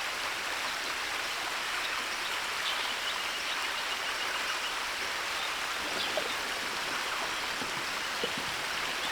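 Steady rush of flowing river water, running high after a recent flood, with a few faint ticks near the end.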